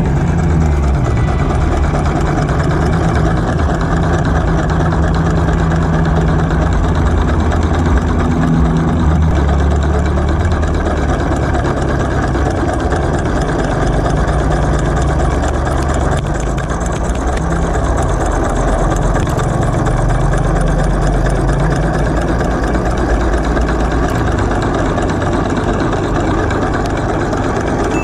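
Homemade two-cylinder solenoid engine running continuously, a steady, dense mechanical buzz and clatter from its solenoids and moving parts, shifting a little in pitch now and then.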